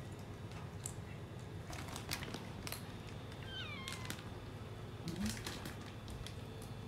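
A tabby cat meows once, a call that falls in pitch, a little past the middle. Scattered light clicks run throughout, which fit a kitten eating from a steel food bowl.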